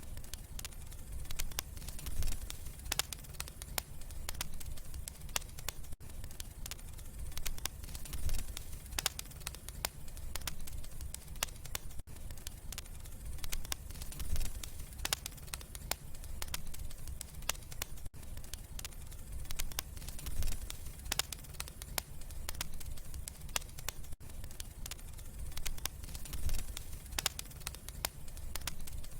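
Wood fire in a fireplace crackling and popping: many sharp, irregular snaps over a steady low rumble of the flames.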